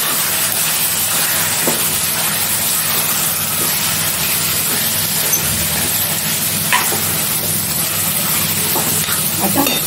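Marinated chicken pieces and onions frying in oil in an aluminium kadhai, a steady sizzling hiss while they are stirred, with a few faint clicks of the spoon against the pan.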